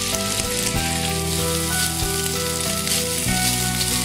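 Small cubes of boiled chicken breast sizzling as they fry in hot sunflower oil in a wok, with steady background music underneath.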